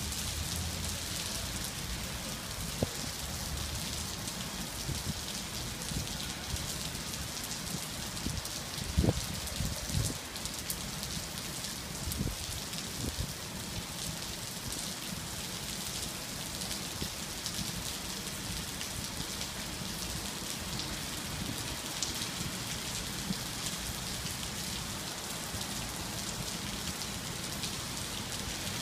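Heavy rain pouring down in a steady hiss, with a few dull thumps about nine and thirteen seconds in.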